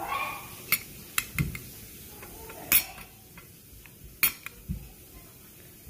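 Metal spoon and fork clinking and scraping against a plate while scooping rice and stew: a scatter of short, sharp clinks, the loudest just under three seconds in and again just after four seconds.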